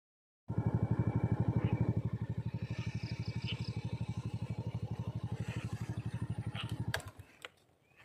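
A small engine running with a fast, even chug, cutting off suddenly about seven seconds in, with faint high chirps over it.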